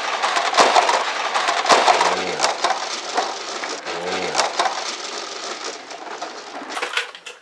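Plastic Lego train cars crashing together and toppling: a loud clatter of hard plastic knocks and rattles that starts suddenly, then scattered clicks that slowly die down.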